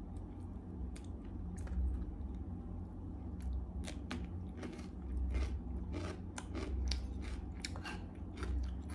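A person chewing and biting food close to the microphone, with a run of sharp, crisp crunches from about halfway through.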